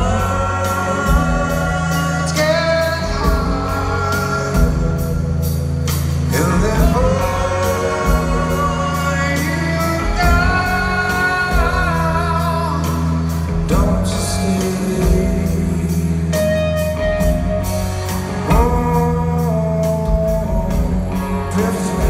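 Rock band playing live, heard from the audience: a man singing lead over electric guitars and drums, with a steady cymbal beat.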